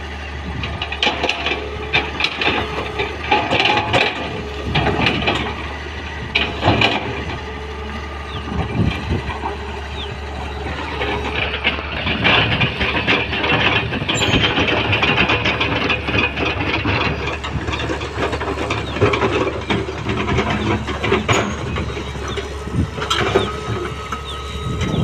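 L&T Komatsu 200 excavator's diesel engine running steadily, with irregular knocks, clanks and scraping clatter from the machine working rock and material.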